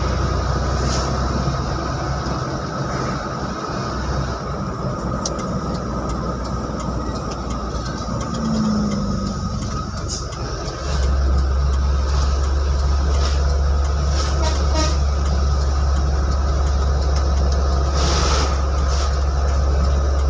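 Cargo truck's engine and tyre noise heard from inside the cab, a steady low drone that gets louder about eleven seconds in as the truck pulls out to overtake.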